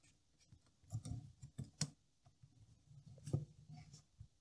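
Faint, scattered clicks and taps of a plastic phone holder being fitted by hand onto the metal stem of a lamp-arm mount, plastic and metal parts knocking lightly together.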